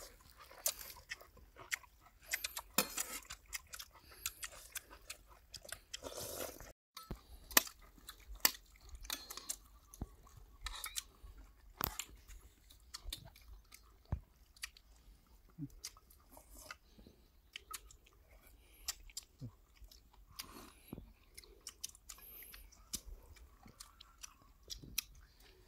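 People chewing and eating close to the microphone, with irregular sharp clicks and crunches.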